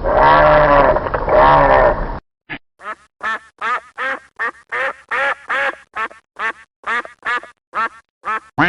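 Ducks quacking. First comes about two seconds of dense, overlapping quacks. After a short pause comes a steady run of single short quacks, about three a second.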